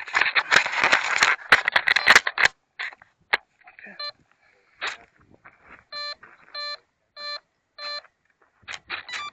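Rustling and handling clicks, then the Habu STS RC jet's electronics beeping on power-up: five short, even electronic beeps about 0.6 seconds apart.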